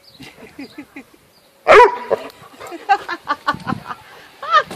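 Mastiff barking, one loud bark about two seconds in followed by a string of shorter barks and yelps, one rising in pitch near the end.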